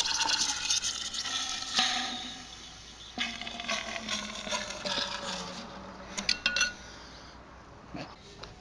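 An apple being rammed down a metal pipe barrel with a steel rod: squeaky, wet scraping of apple against the pipe wall and rod, loudest in the first couple of seconds, with a short burst of metallic clicks a little after six seconds in.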